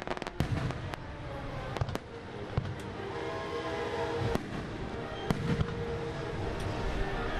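Fireworks going off: a rapid string of crackling pops near the start, then scattered single bangs.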